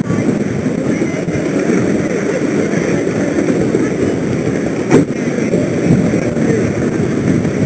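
Indistinct chatter of people close by over a steady noisy background, with one sharp knock about five seconds in.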